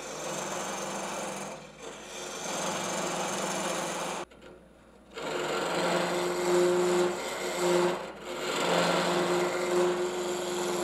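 Gouge cutting into the end grain of a spinning walnut blank on a wood lathe, hollowing out the goblet's cup: a rough, steady cutting noise over the lathe's hum. The cut breaks off for about a second a little before halfway, with brief dips near two and eight seconds.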